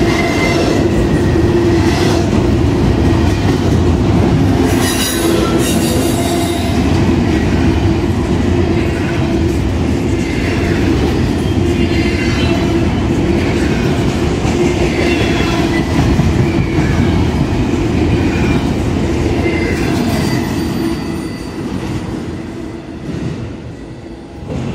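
Double-stack intermodal freight cars rolling past at speed: a loud, steady rumble of steel wheels on rail with a steady tone riding over it and a few sharp clicks. It dies away over the last few seconds as the end of the train goes by.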